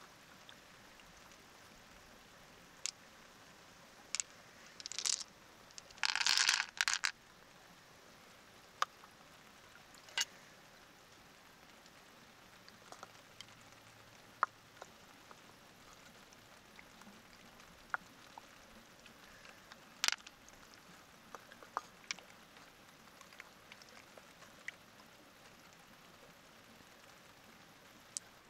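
Scattered small clicks and taps of close handling, with a louder scraping rasp about six seconds in and a few sharper ticks later on.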